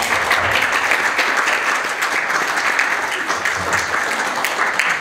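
Audience applauding: many hands clapping together, breaking out all at once and dying away near the end.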